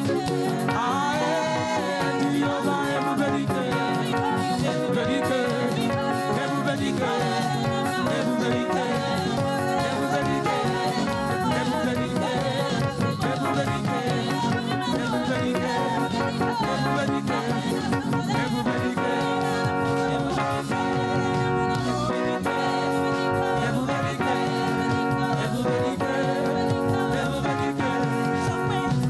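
Live praise music from a church band, with singing over the instruments.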